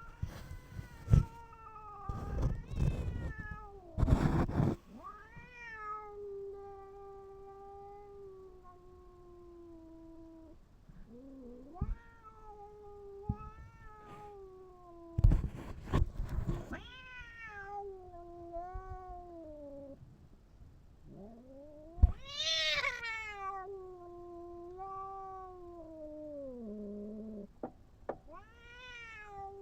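A cat meowing again and again in long, drawn-out calls that bend and fall in pitch, some held for several seconds. Several sharp knocks come between the calls.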